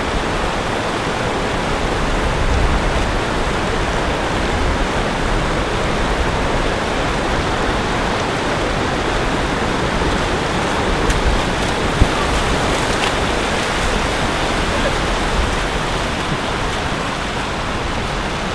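Steady rush of river water pouring over a rocky cascade, with one short knock about twelve seconds in.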